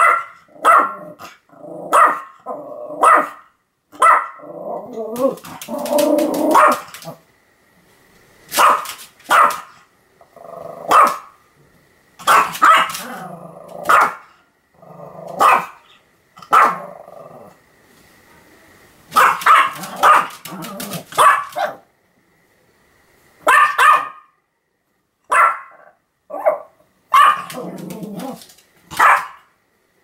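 A Pomeranian barking over and over in short, sharp barks, about one a second at first. Longer, lower growly stretches come between the barks, and there are a couple of brief pauses.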